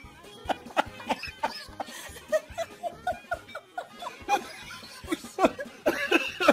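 A person laughing in short repeated bursts of giggling and snickering, loudest near the end.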